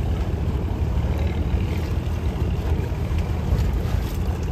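Houseboat's engine running steadily under way, a low, even drone.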